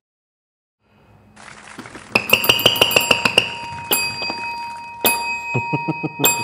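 Show-opening jingle: a rising swell, then a quick run of sharp percussive strikes with glassy, bell-like chimes and sustained ringing tones, starting about a second in.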